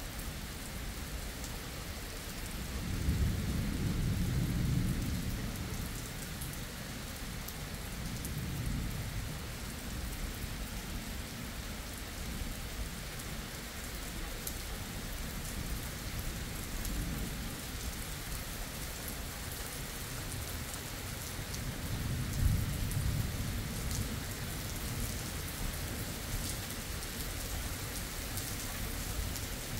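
Steady rain falling on a road and vegetation during a thunderstorm. Low rolls of thunder rumble twice, a few seconds in and again about two-thirds of the way through.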